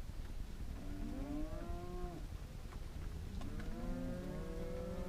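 Cattle mooing: two long, drawn-out calls, the first about a second in and the second starting about three and a half seconds in.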